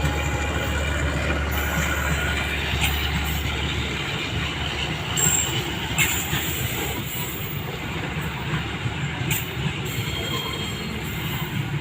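Putri Deli passenger train rolling through the station: a steady rumble of wheels on rail, with wheel squeal and a few sharp clacks at rail joints. A low hum drops away about four seconds in.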